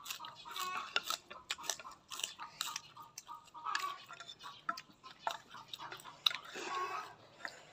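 A person chewing a mouthful of noodles close to the microphone: a run of short, irregular mouth clicks and smacks.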